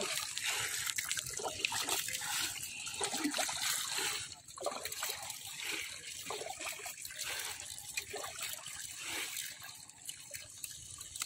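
Shallow water running and trickling through a bamboo screen into a woven basket, with irregular light splashing from hands working in the water.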